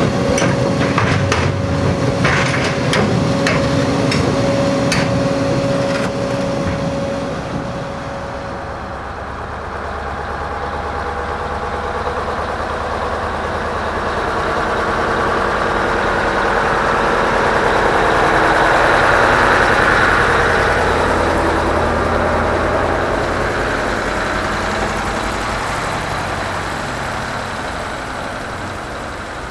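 Scania 144L 530 truck's V8 diesel engine pulling a loaded low-bed trailer past, growing louder to a peak in the middle and fading away toward the end. The first few seconds hold a run of sharp knocks and clicks over a steady engine hum.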